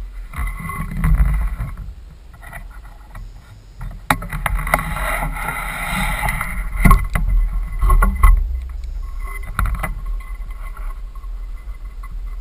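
Handling noise on a bow-mounted camera as the bow is raised and drawn: rustling and rubbing with a low rumble, and several sharp clicks and knocks, the loudest about seven and eight seconds in.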